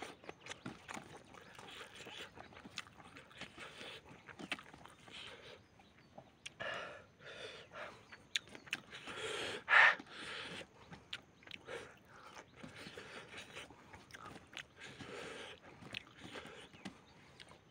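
Close-up eating noises: a man chewing and smacking his lips on handfuls of rice and spicy chicken, with many short wet clicks and several breathy swells, the loudest about ten seconds in.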